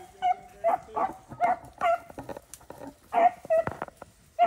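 Rabbit-hunting beagle barking close by: about eight short, sharp barks in quick succession, a pause of nearly a second in the middle.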